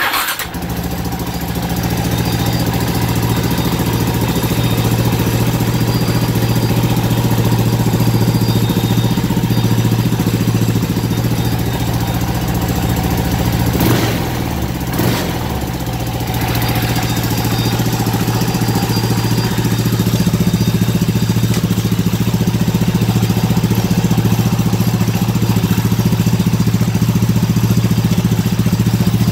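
KTM LC4 single-cylinder four-stroke motorcycle engine catching suddenly and running at a steady idle, now running again after being brought back to life. About halfway through it is briefly blipped twice on the throttle, then settles back to idle, slightly louder toward the end.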